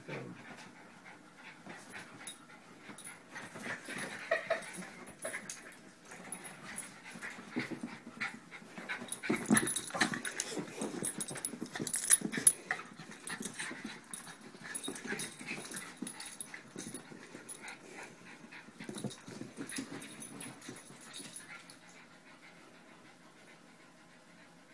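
Two small dogs play-wrestling, making dog play-fight noises amid scuffling. It is loudest around the middle and dies away about three seconds before the end.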